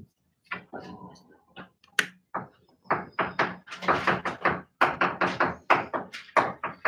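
Chalk tapping and scraping on a blackboard as a chemical structure is drawn: a run of short, sharp strokes, sparse at first and coming about three or four a second from about three seconds in.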